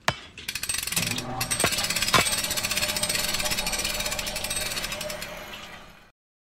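Logo-sting sound effect: a very fast mechanical rattle, like a pneumatic hammer or machinery, with a few sharp hits in the first couple of seconds. It fades and cuts off about six seconds in.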